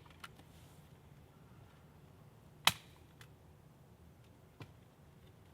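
A few sharp, isolated knocks over a quiet background. The loudest is a single sharp crack about two and a half seconds in, with fainter knocks near the start, just after three seconds and about four and a half seconds in.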